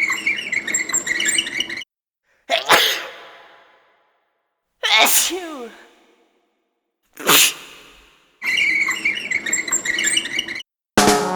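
A person sneezing three times, each a sudden burst that dies away over about a second; the middle sneeze is a voiced 'achoo' falling in pitch. At the start and again near the end come stretches of about two seconds of a rough, crackly noise.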